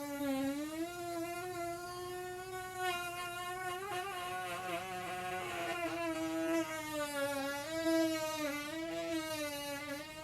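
A long, drawn-out buzzing fart, one unbroken pitched blast that holds a fairly steady pitch while wobbling slightly up and down.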